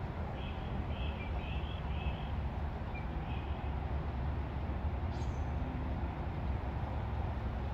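Outdoor background of a steady low rumble, with a quick series of short bird chirps in the first few seconds and one brief falling whistle about five seconds in.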